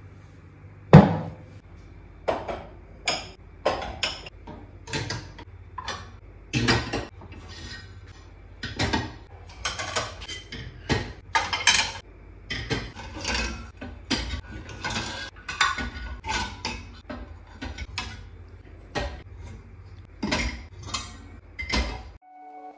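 Dishes, pots and cutlery being handled and put away in a kitchen: a steady run of irregular clinks and knocks, at times several a second, some ringing briefly, over a faint low hum.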